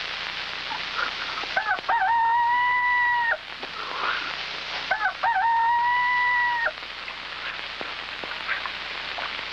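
A rooster crowing twice, each crow opening with a couple of short notes and ending in one long held call, over a steady hiss like rain.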